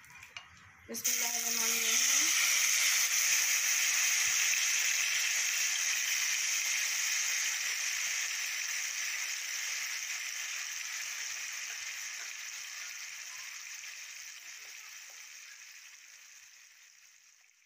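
Marinated chicken pieces sizzling in hot oil in a kadhai. The sizzle starts loud about a second in as the chicken goes into the oil, then slowly dies down.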